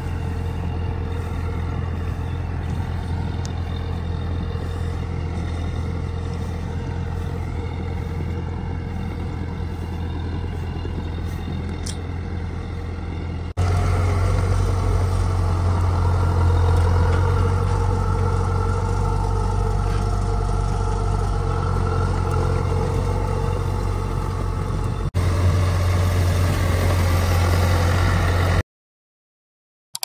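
An engine running steadily with a deep low hum. It jumps louder at two abrupt changes and stops suddenly near the end.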